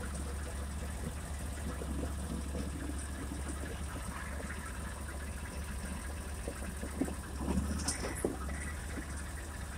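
2020 Argo Frontier 6x6 off-road vehicle's engine running steadily as it drives down a rough gravel track. Short knocks and rattles come through, most of them near the end.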